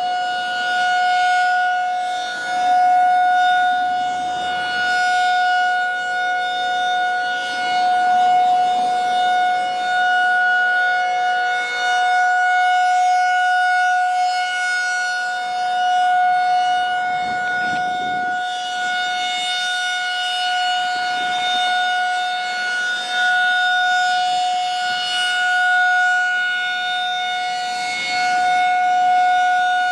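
Federal Signal 2001-SRN rotating outdoor warning siren sounding a steady, unwavering tone at full speed during a test. The sound swells and fades every few seconds as the rotating head sweeps past.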